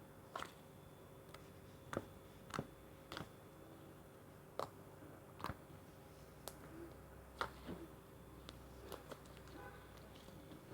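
Slime being handled: faint, irregular small clicks and pops, about ten of them, spaced a half-second to a second apart.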